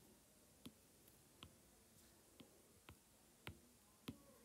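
Near silence with about six faint, irregular clicks of a stylus tapping on a tablet's glass screen.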